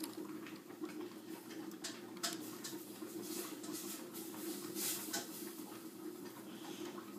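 Plastic construction-toy pieces being handled and pushed together: scattered light clicks and rattles, with a few sharper clicks about two seconds in and around five seconds, over a steady low hum.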